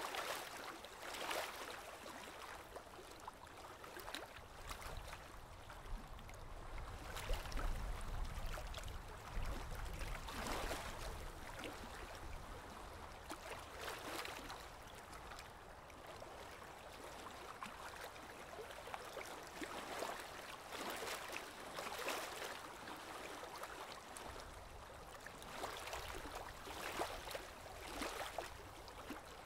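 Water trickling and gurgling in a goldfish aquarium, an uneven wet hiss that swells irregularly, with a low rumble about a third of the way in.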